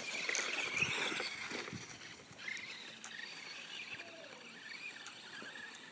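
Faint whine of a Traxxas Stampede 4x4 VXL's brushless electric motor as the RC truck drives across snow, wavering in pitch and strongest in the first second and a half.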